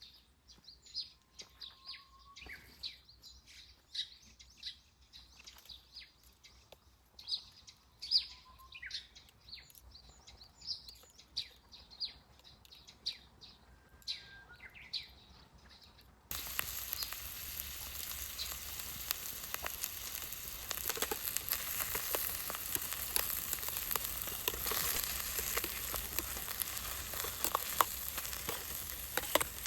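Small birds chirping, with short calls and a few slurred whistles. About halfway it switches abruptly to a wood campfire: a steady hiss with dense crackling.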